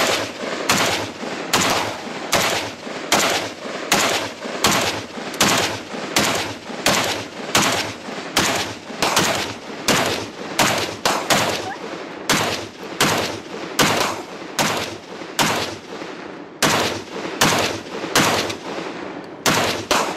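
Short AK-pattern pistol fired semi-automatically in a long, steady string of single shots, about one and a half shots a second.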